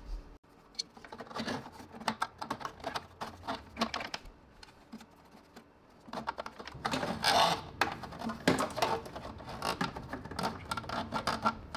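A plastic washer-fluid fill tube and the surrounding plastic trim being handled and pushed through the engine bay by hand: irregular light clicks, taps and scraping, with a louder stretch of rubbing about seven seconds in.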